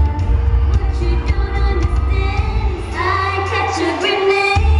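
Live pop music over a loudspeaker system, with a woman singing over a heavy bass beat. About three seconds in, the beat thins out while she holds a long note, and the full beat comes back near the end.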